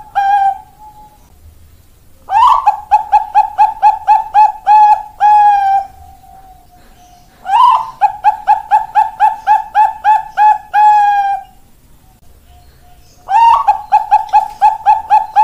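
Zebra dove (Bangkok-bred perkutut) singing: three song phrases a second or two apart, each opening on a rising note, then a fast run of short, clipped coos and closing on one longer coo.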